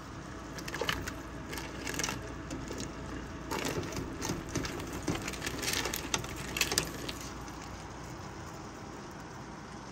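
Kitchen tongs stirring and lifting cooked crabs out of a pot of broth: irregular clacks and crackly scrapes of crab shell against the tongs and pot, dying away about seven seconds in.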